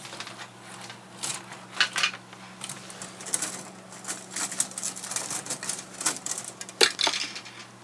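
Small hard plastic GPS parts clicking and clattering irregularly as they are sorted by hand, someone rummaging through a stock of spare parts.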